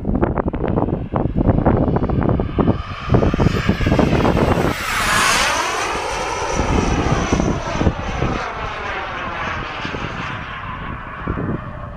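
Radio-controlled model jet plane's turbine flying a fast pass: a high whine that swoops down in pitch about five seconds in as it goes by, then carries on more softly. Wind buffets the microphone in the first few seconds.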